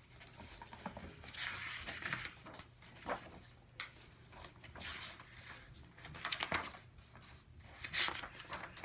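Faint rustling and a few light clicks, scattered through the pause: a picture book's page being handled and turned.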